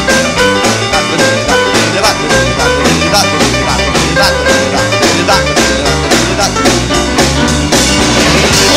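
Jump-blues band with saxophones, electric guitar, piano, bass and drums playing an instrumental passage over a steady driving boogie beat.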